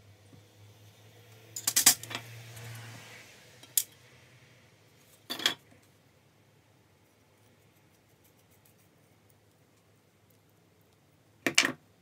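Small metal and plastic drill parts clacking and clinking as they are handled and set down on a wooden bench: the motor and gearbox pieces of a disassembled Makita 6222D drill driver. A few separate knocks, the loudest a quick cluster about two seconds in and another near the end.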